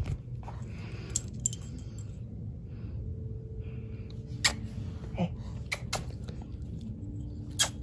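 Small dog's metal collar tags clinking as it moves: a few scattered light clicks over a low steady room hum.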